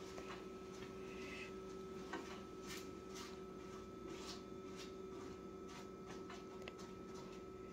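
Silicone spatula spreading a chopped nut mixture over phyllo dough in a glass baking dish: faint, irregular scraping and rustling strokes over a steady low hum.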